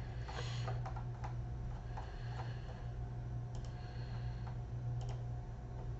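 Computer keyboard typing and mouse clicks, a quick run of keystrokes in the first second or so and a few scattered clicks after, over a steady low electrical hum.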